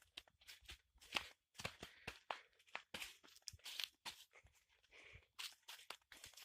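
Footsteps crunching and rustling on dry ground, irregular and faint.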